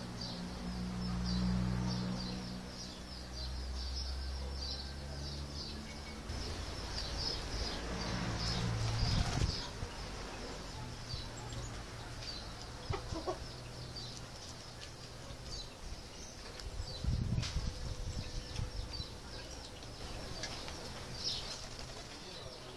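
Doves' wings flapping in two short bursts, about nine and seventeen seconds in, over steady high chirping of small birds. A low hum runs through the first six seconds.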